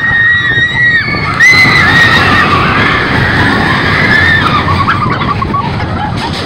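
Riders screaming on a mine-train roller coaster as it drops into a tunnel, over the rumble of the train on the track and wind on the microphone. The screams are high and long, each held for about a second, and die away about four and a half seconds in; the rumble goes on.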